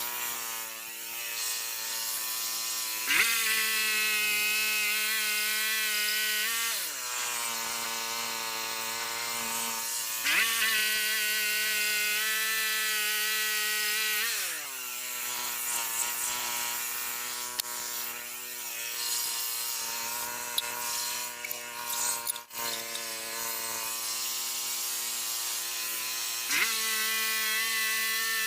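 Gasoline engine of a Frontier OS27 band sawmill running, revving up three times to full speed, holding for a few seconds, then dropping back to a lower idle. This is the rhythm of the sawmill's throttle being opened to drive the band blade for a pass and then eased off.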